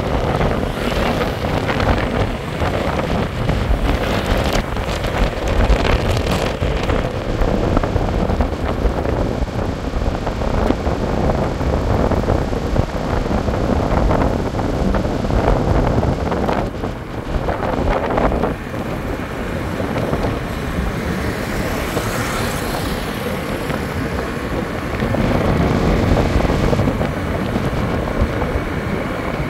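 Steady vehicle traffic noise with wind buffeting the microphone, a dense low rumble that grows a little louder in the last few seconds.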